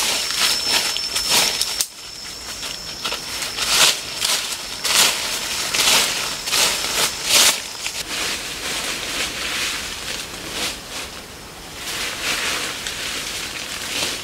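Dry fallen leaves rustling and crunching in irregular bursts as they are scooped up by hand and piled onto a sack.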